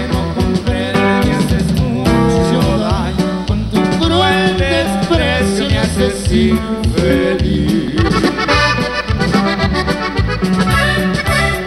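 Norteño band playing an instrumental break: a button accordion carries the melody over bass and drums keeping a steady beat.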